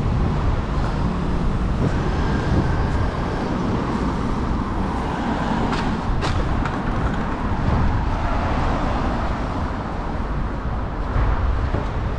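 City street traffic: motor vehicles running and passing in a steady low rumble, with a single sharp click about six seconds in.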